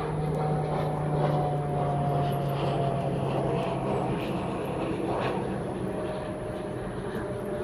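Airplane flying over, a steady engine drone that slowly falls in pitch as it passes.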